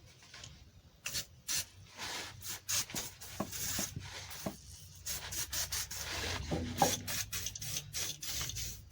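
Quick, irregular scraping and rubbing strokes, a rough rasping sound, as the rusty fittings of an old motorhome exhaust are worked on.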